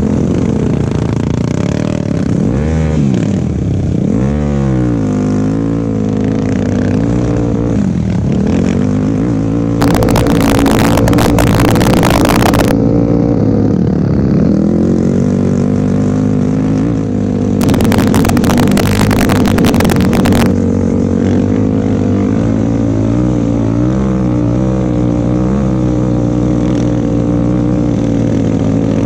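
Hybrid Yamaha YFZ250F ATV engine running under way on sand, its pitch rising and falling as the throttle is worked. Twice, about ten and eighteen seconds in, a loud rushing noise lasting two to three seconds covers it.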